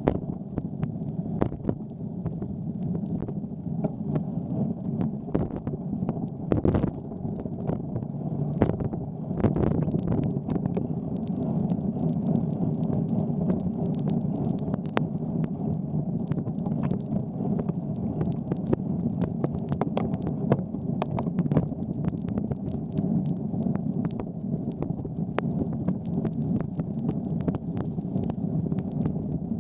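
Wind buffeting a bike-mounted camera's microphone with steady rumble from a bicycle riding on wet pavement, and many scattered sharp clicks.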